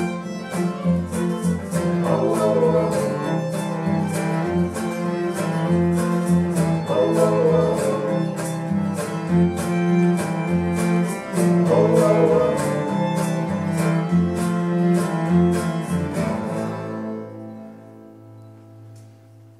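Acoustic string band with an acoustic bass guitar playing a song at a steady beat; about three-quarters of the way through the playing stops and the final chord rings on and fades out.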